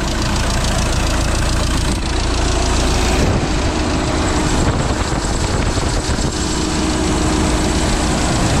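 Audi A4 B8's 2.0 TDI four-cylinder diesel engine idling steadily, heard close at the open engine bay while still cold, shortly after a cold start.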